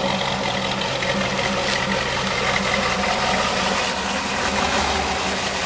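1986 Chevrolet Camaro IROC-Z's V8 running steadily at low revs as the car rolls slowly into a driveway.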